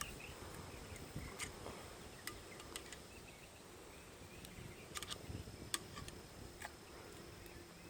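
Faint outdoor ambience: insects buzzing steadily, with a few scattered light clicks.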